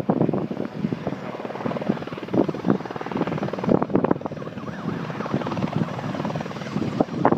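Helicopter in flight, its rotor chopping steadily, with irregular louder thumps.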